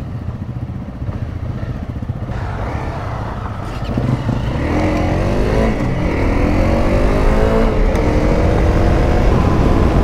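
Single-cylinder engine of a Honda CRF dual-sport motorcycle running low for the first few seconds, then accelerating about four seconds in, getting louder with its pitch rising in two pulls.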